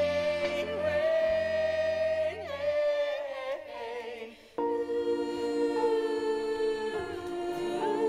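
Music: long held sung notes over a sustained accompaniment. The sound dips briefly about halfway through, then a new chord comes in.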